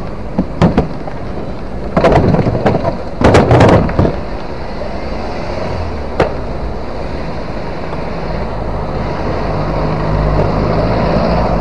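A van reversing into a stationary motorcycle: two sharp knocks, then two loud bouts of banging and scraping about two and three seconds in, and one more knock about six seconds in. A steady low rumble of engines and traffic runs underneath.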